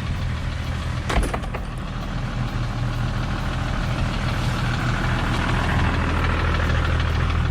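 Toyota Land Cruiser 60-series engine idling steadily, with a short click about a second in and a rushing noise that builds in the second half. The engine is due for a gasket replacement and a tappet (valve clearance) adjustment.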